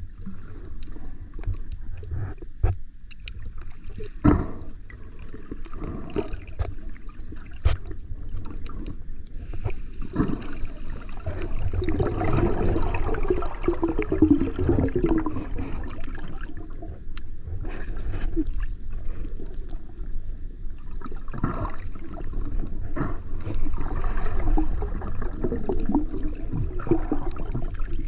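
Muffled water sound heard through a camera held underwater: a steady low rumble of moving water, with bubbling and gurgling that comes and goes and scattered sharp knocks.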